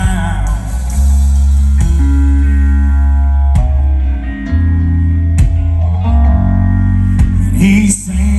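Live country band playing an instrumental passage with no singing: guitars over bass guitar and a drum kit. The bass is heavy, and held guitar notes change every second or so, with a few sharp drum hits.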